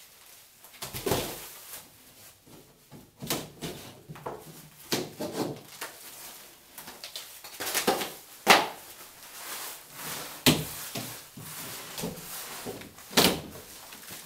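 Popcorn-textured ceiling panels being pulled down from the joists and broken up by hand: a string of irregular cracks, knocks and thuds, sharpest about eight and a half seconds in and again near the end.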